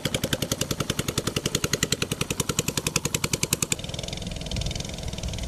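Small fishing boat's engine chugging in a fast, even knock of about eight beats a second. About two-thirds of the way through it changes abruptly to a smoother, steadier drone.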